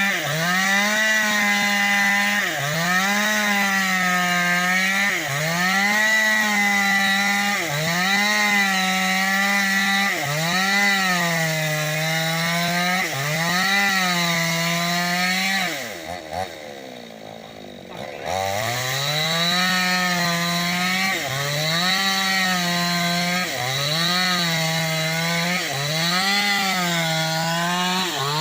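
New West 568 two-stroke chainsaw ripping lengthwise through bayur wood to cut planks. The engine runs at high revs, its pitch sagging and recovering every two to three seconds as the chain loads in the cut. About halfway through it drops to idle for a couple of seconds, then revs back up.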